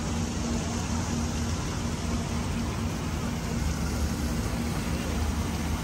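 Steady low engine hum under an even hiss, with no breaks or sudden events.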